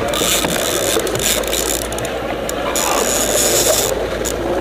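Fishing reel ratcheting steadily with a king salmon on the bent rod, its higher clicking pausing briefly about two seconds in and again near the end.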